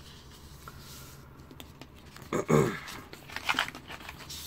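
A short falling voiced sound, like a murmured 'hmm' or sigh, about two and a half seconds in, followed by a brief rustle. Otherwise faint room tone.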